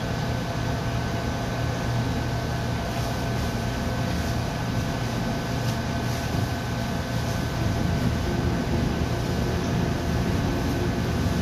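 Battered Jack Salmon fillets frying in a commercial deep fryer: a steady sizzle of hot oil with a few faint pops, over the constant hum of the kitchen's exhaust hood fan.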